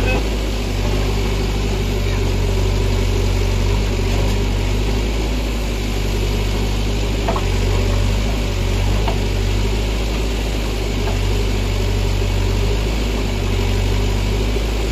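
JCB 3DX backhoe loader's diesel engine running steadily with a deep, even hum while the backhoe arm works the bucket into rubble.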